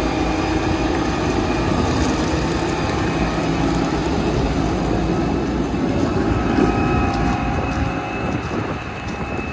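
Fendt 1167 Vario MT rubber-tracked tractor driving past on gravel, its engine running steadily with a thin high whine over the low drone.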